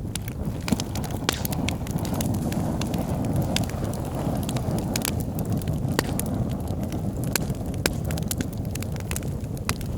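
Wood fire burning in a fireplace: a steady low rumble of flames with frequent sharp crackles and pops from the burning logs at irregular intervals.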